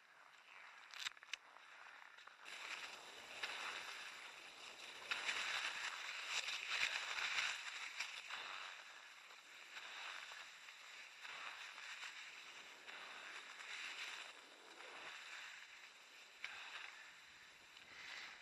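Cross-country skis swishing along groomed classic tracks, with a steady rhythm of strides and pole plants about once a second, starting about two seconds in after a couple of short clicks.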